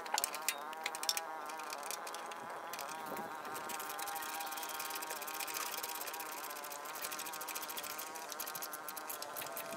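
Steady insect buzzing with a slight waver in pitch, and faint fine clicking over it.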